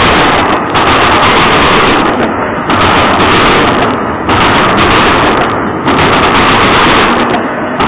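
Double-stack intermodal freight train passing close by: a loud, continuous rumble and clatter of steel wheels on rail, dipping briefly about every second and a half as the cars go by.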